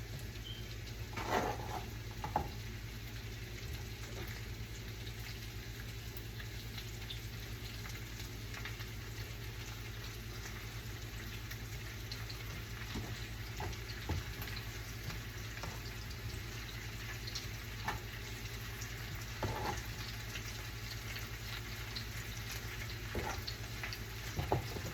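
Cut red-skin potatoes frying in a pan, a steady sizzle, with a few light knocks about a second in and again near the end.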